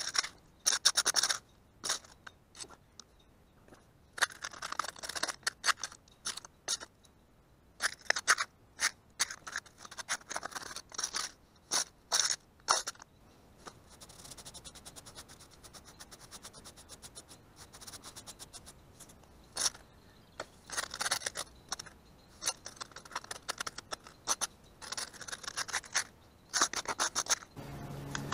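Hand tool scraping and scratching soil and grit off the rim of a concrete septic tank lid, in irregular short strokes with a quicker run of light scrapes in the middle.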